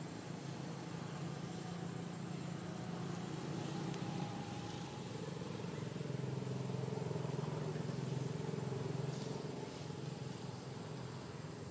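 Low hum of a motor vehicle's engine running nearby. It grows louder through the middle and eases off near the end, over a thin, steady high-pitched tone.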